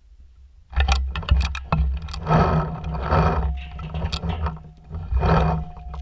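A paintball player breathing hard in loud puffs close to the microphone, four or five breaths with pauses between. A quick run of sharp cracks comes about a second in.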